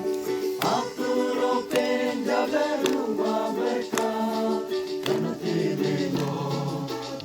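A group of voices singing a gospel song together in harmony, with sharp taps keeping a beat about once a second.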